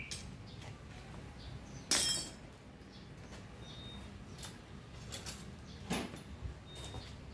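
A sharp metallic clink about two seconds in, then a few light clicks, as a bare aluminium mountain-bike frame and its fittings are handled.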